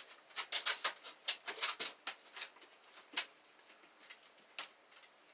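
Dimple pick working the pins of a six-pin Magnum dimple-lock Euro cylinder: a quick run of sharp clicks for the first two seconds or so, then a few scattered clicks.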